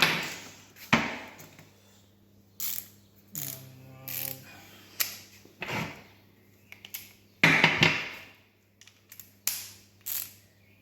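Ratchet wrench clicking in short, irregular strokes, about one a second, as a bolt on the VW T5 2.5 engine is tightened to 150 Nm and then turned a further 90 degrees.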